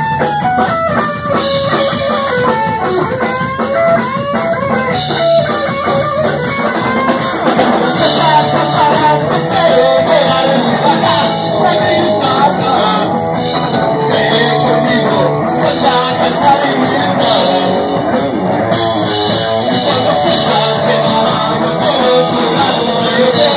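Rock band playing live: electric guitar melody over drum kit, with a singer near the end.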